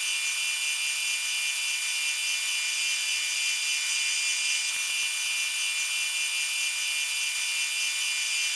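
An electric machine tool running steadily at constant speed: an even, high-pitched whine made of several steady tones over a hiss, with no low rumble.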